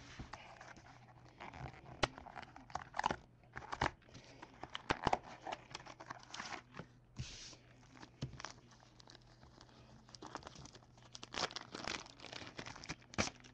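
Hands unwrapping and handling trading-card packaging: irregular crinkling and tearing of a wrapper, with light clicks and taps of cards and the cardboard box.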